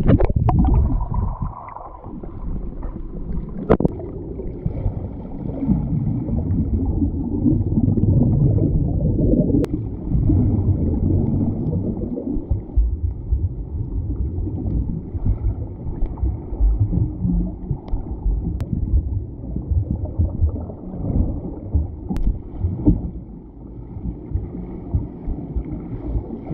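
Muffled underwater sound of a swimming pool picked up by a submerged camera: a low, dense rumble of churning water from swimmers moving and pushing off nearby, with a few sharp clicks.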